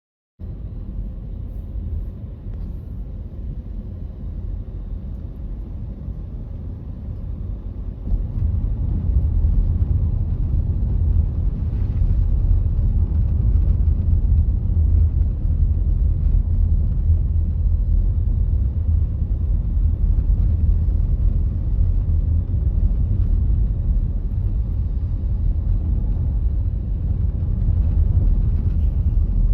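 Car driving on a snowy road: a steady low rumble of tyres and engine. It cuts in abruptly a moment in and steps up louder about eight seconds in.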